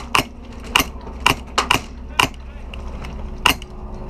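Krytac CRB airsoft electric rifle firing single semi-automatic shots, about eight sharp cracks at an irregular pace of roughly one every half second.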